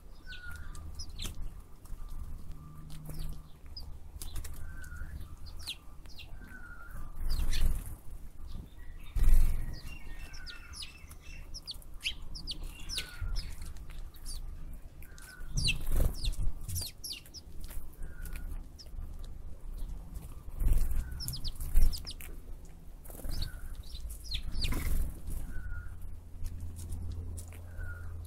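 Wild birds calling in open country: one short call repeats about every second and a half among scattered quick high chirps, over a low rumble that swells loudly a few times.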